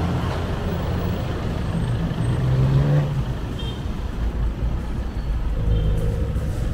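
Street traffic: motor vehicle engines running and passing close by, a low engine rumble that swells and is loudest a little before three seconds in.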